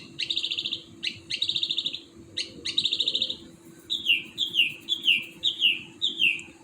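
A songbird singing at night. It gives a sharp note followed by a fast buzzy trill three times, then a run of about five quick down-slurred notes.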